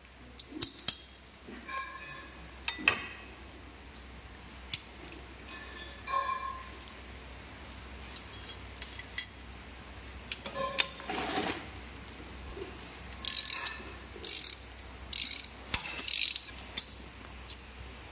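Steel hand tools clicking and clinking on a diesel engine's rocker arms and valve gear during tappet setting, some knocks ringing briefly, with short rasping bursts of a ratchet wrench in the second half.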